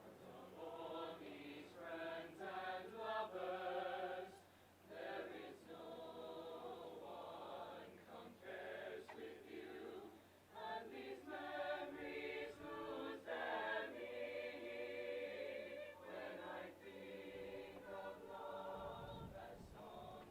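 A group of voices singing together in phrases with short breaks between them.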